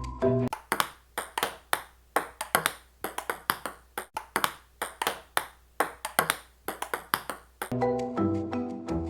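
A quick, uneven run of sharp taps or clicks, several a second, lasting about seven seconds, with light mallet-percussion music cutting off just before it and coming back near the end.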